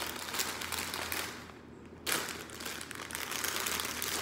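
Clear plastic packaging bags crinkling as they are handled, a dense crackle of fine ticks. It dips briefly about a second and a half in, then starts again suddenly, loudest just after two seconds in.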